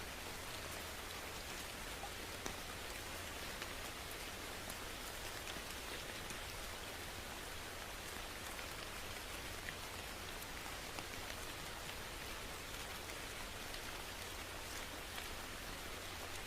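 Steady rain falling, an even hiss with scattered small drop hits on a surface and a constant low rumble underneath.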